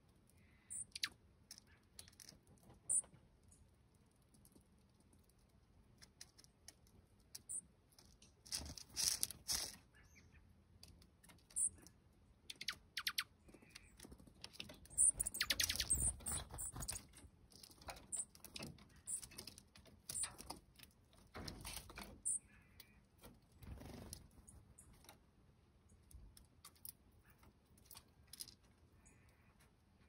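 Dark-eyed juncos pecking and picking through sunflower seeds on a wooden platform feeder: bursts of dry clicks and seed rattling, with brief high chip notes. The busiest, loudest spell of clatter comes about halfway through.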